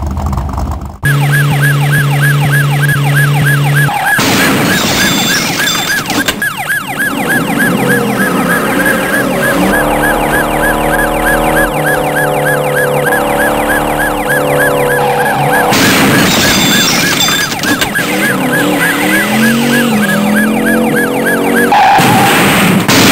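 A police siren warbling fast and steadily, cutting in about a second in. Held low tones and a rising revving sound lie underneath.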